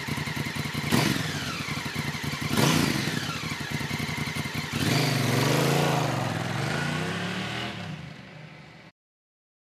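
Honda Africa Twin motorcycle's parallel-twin engine running, its pitch rising and falling several times as it is revved or ridden. The engine is loudest and wavers from about halfway through, then fades and cuts off abruptly a second before the end.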